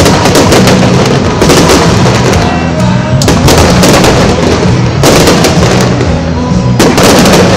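Aerial fireworks shells bursting, a loud boom with crackle after it every one and a half to two seconds, over music with steady low bass notes.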